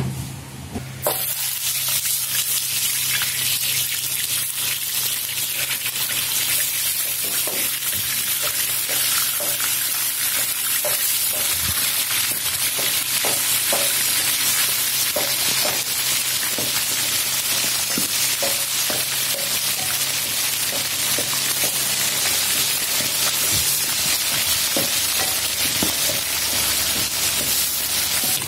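Fish pieces deep-frying in hot oil in an iron kadai: a steady, loud sizzle with scattered pops and crackles as more pieces are dropped in. The sizzle starts abruptly about a second in.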